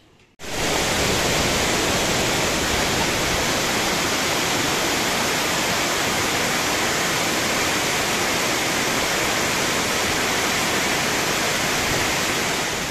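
Water pouring over a dam spillway, a loud, steady rush of falling water that starts abruptly about half a second in.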